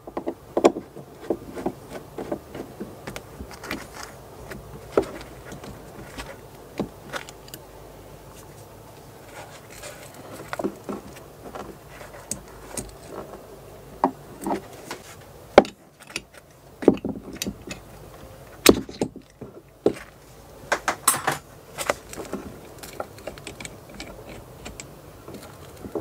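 Irregular small clicks, taps and light metallic clinks of hands unscrewing and taking apart a boat engine's anti-siphon valve, with a few sharper knocks in the second half.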